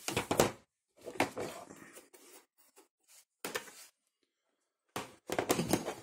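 Rummaging through a tool set for an Allen key: four short bursts of clattering and rattling with pauses between them.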